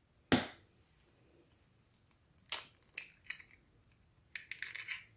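An egg being cracked on a stainless steel mixing bowl: a sharp tap near the start, three more taps a little past halfway, then a quick run of small clicks near the end as the egg is opened.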